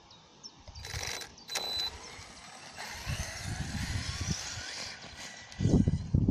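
Electric motor of a Maverick Strada short course RC truck whining up and down in pitch as it is driven over rough concrete, with tyre and gravel noise. Near the end, heavy low buffeting on the microphone becomes the loudest sound.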